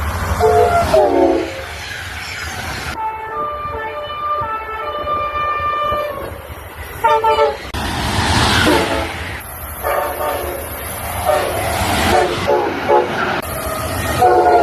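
Train horns sounding repeatedly over the rumble of passing trains, each blast a chord of several steady tones, with abrupt changes from one horn blast to the next. Near the start one horn chord slides down in pitch as the train passes.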